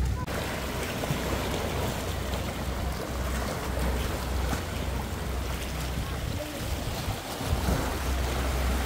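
Small sea waves washing over rocks and stone paving at the water's edge: a steady rush of surf.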